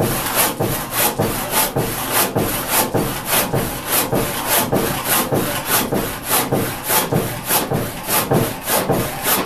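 Disston D-8 eight-point crosscut handsaw cutting across a thick 6x4 timber beam, with steady back-and-forth strokes rasping through the wood at about three strokes a second.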